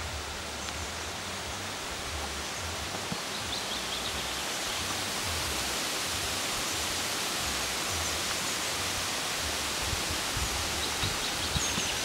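Outdoor ambience: a steady hiss of wind through leaves and grass, with low wind rumble on the microphone. A few faint high bird chirps come and go.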